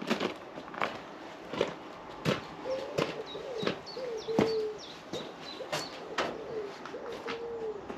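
Footsteps crunching on gravel at a steady walking pace, about one every 0.7 s. From about three seconds in, a pigeon coos in short wavering phrases, along with a few small high chirps.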